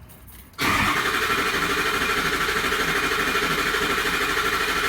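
Starter cranking a 2003 Ford F550's 6.0 Power Stroke V8 diesel, beginning about half a second in: a steady, even, rapid churn that keeps turning over without the engine firing. It is a crank-no-start because injection control pressure stays near 400 psi, short of the 500 needed, from a leak in the high-pressure oil system (a broken injector O-ring).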